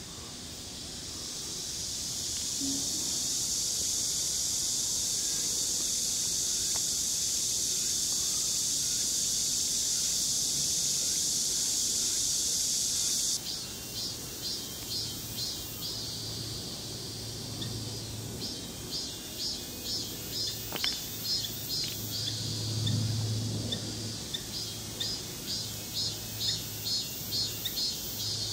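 Steady, high-pitched insect drone that cuts off suddenly about halfway through. It is followed by rhythmic high chirping, about two pulses a second.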